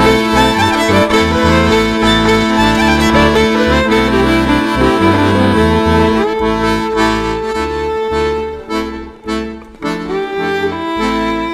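Accordion playing an instrumental tune, with held melody notes over rhythmic bass chords; the playing thins out into shorter phrases about seven seconds in.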